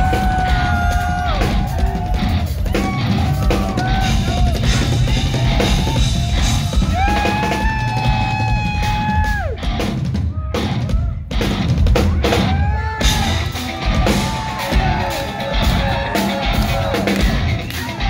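Live instrumental progressive metal: electric guitars hold long lead notes that bend up and down over busy drum kit and bass drum playing. The music stops short twice about ten seconds in.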